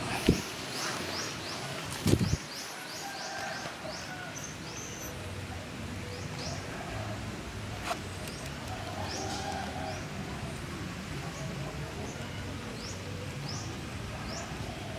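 Small birds chirping in runs of short, quick, falling notes, in two spells, over a steady low hum. Two loud thumps in the first couple of seconds.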